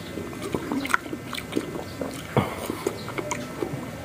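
Close mouth sounds of people eating soft ripe Indian mango slices: chewing, lip smacks and sucking, as irregular wet clicks.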